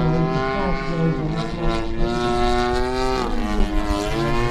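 Petrol engine of a giant-scale radio-controlled aerobatic plane running in flight, holding a steady pitch. The pitch sags a little past three seconds in and climbs back about a second later as the throttle changes.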